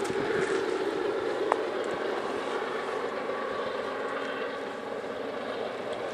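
Diesel freight locomotives running: a steady engine hum and rumble, with one brief sharp tick about a second and a half in.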